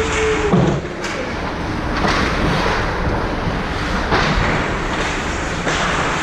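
Ice hockey play on a rink: a steady scraping rush of skates on ice with several sharp knocks of stick, puck or boards.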